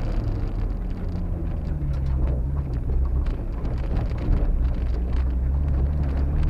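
Mitsubishi Pajero rally car's engine heard from inside the cabin, driven hard, its revs falling and rising as the driver works through the gears. Scattered clicks and knocks run over it.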